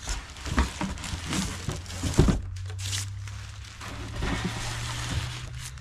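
Plastic wrapping crinkling and a cardboard box rustling and scraping as a boxed portable power station is taken out, with a thump about two seconds in. A low steady hum runs under the second half.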